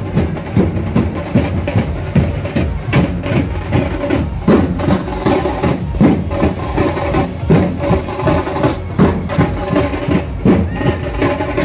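Loud procession music driven by drums, with sharp strokes keeping a steady, quick beat over a held melody.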